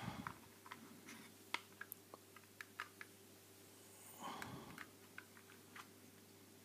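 Faint scattered clicks and taps of hard plastic packaging being handled and worked at, with a brief rustle about four seconds in.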